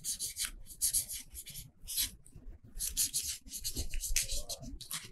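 Pens scratching on paper card in quick, irregular strokes as cards are drawn on and coloured in.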